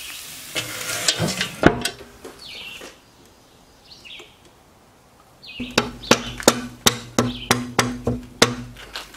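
Metal knocks and a clank from a charcoal barrel grill, then a run of about ten sharp metallic clicks, roughly three a second, as its dampers are turned down to cut the airflow. A bird chirps a few times in between.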